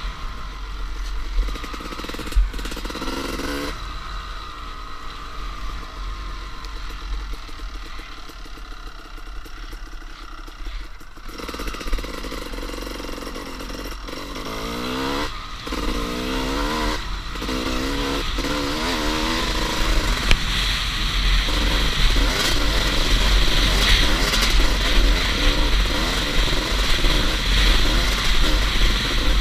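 Two-stroke dirt bike engine ridden flat out, revving up through the gears with several rising sweeps in pitch, easing off for a few seconds early on and running louder and harder in the second half. Heavy wind rumble on the helmet-mounted microphone.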